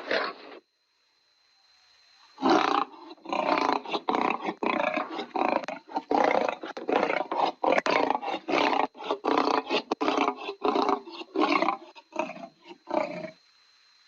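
Lion roar sound effect, played as a quick stuttering run of short roaring bursts, about three a second, after a brief first roar that cuts off. A faint steady high-pitched whine sits underneath.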